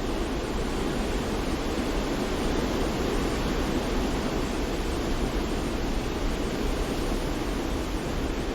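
Steady, unchanging rushing noise for sleep, heaviest in the low-middle range and without any separate events.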